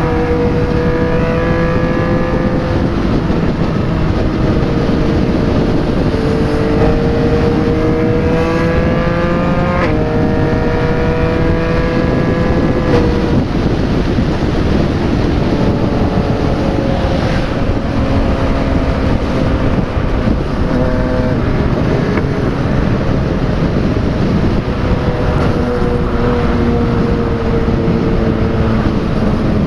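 Yamaha MT-09's inline three-cylinder engine breathing through an aftermarket replica Akrapovic exhaust, ridden at highway speed. Its pitch rises several times in the first half as the throttle is opened, drops and climbs again around ten seconds in as it shifts up, then holds steady at cruise, over a constant rush of wind and road noise.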